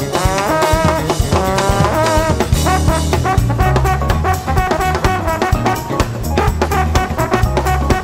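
Live jazz band playing: a trombone lead with wavering, shaken notes in the first few seconds, then shorter repeated phrases. Under it a drum kit keeps a steady beat, with electric bass and Fender Rhodes.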